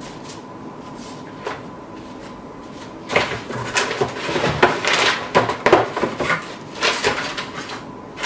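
Papers and a flat item handled and slid into a cardboard box: rustling, scraping and light knocks of cardboard, in a busy run from about three seconds in, after one earlier click. A faint steady whine sits underneath.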